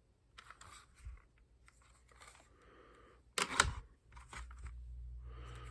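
Handling noise from objects being moved and handled: scattered clicks and rustling, a loud sharp clack about three and a half seconds in, then a low steady hum starting just after.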